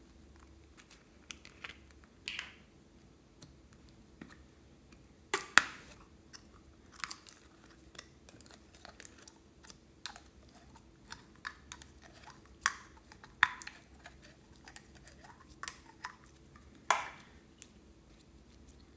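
Clear orange slime being pulled out of its plastic jar and squeezed in the hands: irregular sticky clicks and wet pops, with a few sharper, louder ones.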